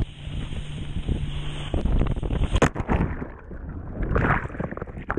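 Wind on the microphone and rushing water while a wakeboarder is towed through a jet ski's wake. About two and a half seconds in there is a sharp splash as the rider falls and goes under. After that the sound turns muffled, with underwater bubbling and scattered clicks.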